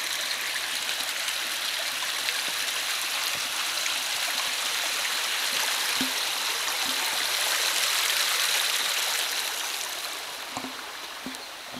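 A small brook rushing and babbling, getting louder until about eight seconds in and then fading near the end, with a few faint knocks.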